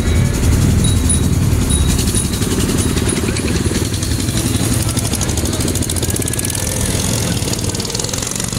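Small engines of miniature parade cars and a golf cart running as they drive past, a steady low drone with a fast, even pulse through the middle stretch. A short high beep repeats during the first couple of seconds.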